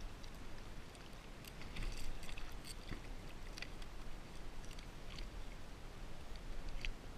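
A hooked blacktip shark thrashing at the surface beside a kayak: irregular water splashes and small crackling clicks, busiest from about one and a half to three seconds in, over a low steady rumble.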